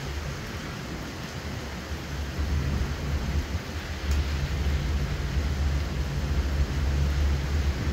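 Hurricane rain and wind: a steady hiss of heavy rain over a deep, gusting rumble that grows stronger about halfway through.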